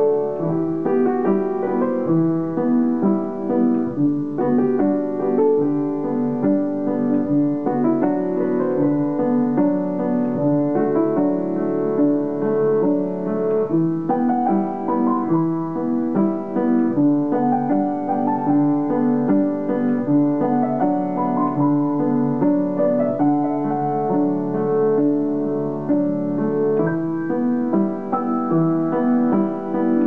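Solo piano music playing steadily, with melody and chord notes held and overlapping.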